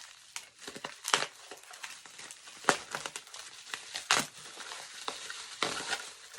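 Packing material crinkling and rustling as it is pulled away from a toy train car, in irregular handling noises with sharper crackles about one, two and a half and four seconds in.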